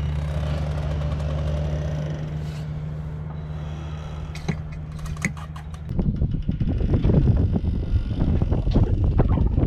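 A steady low mechanical hum with a couple of small clicks. About six seconds in it gives way to louder, rough wind buffeting on the microphone.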